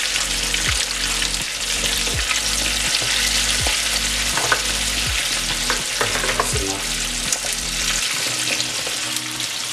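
Hot oil bubbling and sizzling steadily in a deep-frying pot as flour-coated pieces are lowered in.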